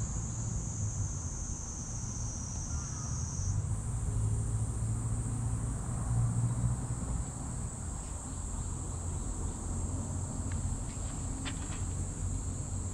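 Steady high-pitched drone of insects, stepping slightly higher in pitch about three and a half seconds in, over a low steady rumble. A few faint clicks come near the end.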